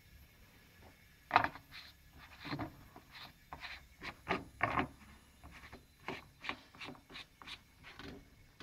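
A run of about fifteen irregular knocks and rubs, the loudest about a second and a half in: handling noise from the camera as it is moved around over the engine bay.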